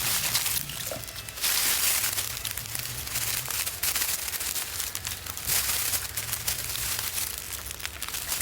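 Irregular rustling and crackling with many small clicks, coming in surges.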